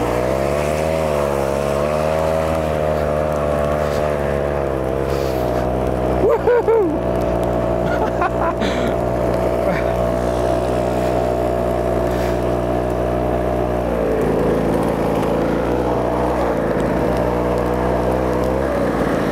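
Small engine of a motorized track drive for skis running under load, its pitch wavering for the first few seconds and then holding steady. There is a brief louder disturbance about six seconds in, and the note changes about fourteen seconds in.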